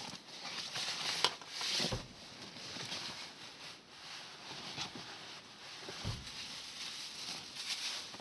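Rustling of a nylon backpack and a plastic bag being rummaged through by hand, with small crinkles and clicks throughout and a couple of dull knocks.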